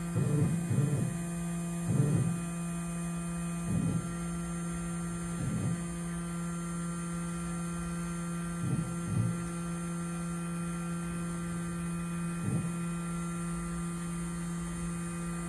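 Rownd desktop CNC lathe's stepper motors jogging the spindle head in several short moves, each a brief whir that rises and falls, over the machine's steady electrical hum.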